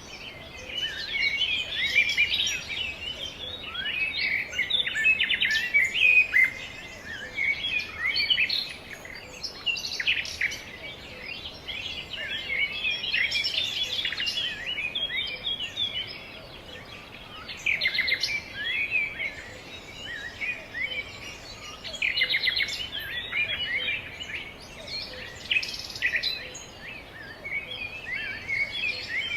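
Several songbirds chirping and twittering at once, in busy overlapping bursts every few seconds.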